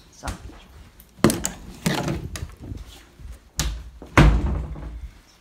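A run of knocks and thuds from a door being handled, with four louder bangs in the middle of it.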